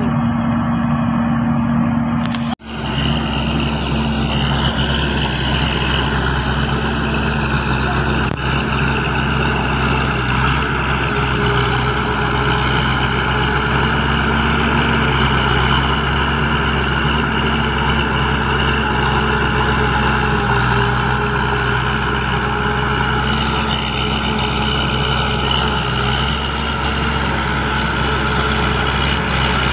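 Kangro crawler tractor's engine running steadily under load as it works a flooded rice paddy. The sound drops out briefly about two and a half seconds in.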